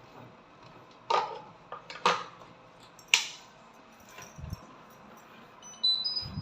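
Three sharp plastic clacks about a second apart, then a short run of electronic beeps rising in pitch near the end, typical of an Ariston washing machine's control panel being switched on.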